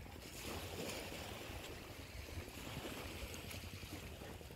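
Steady outdoor background noise with a low rumble underneath and a few faint ticks, with no one speaking.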